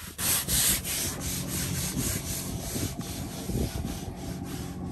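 Stiff deck brush scrubbing a boat's deck in quick repeated rasping strokes.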